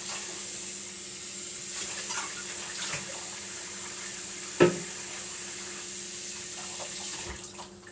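Kitchen tap running water into the sink, with a sharp knock about halfway through. The water is turned off near the end.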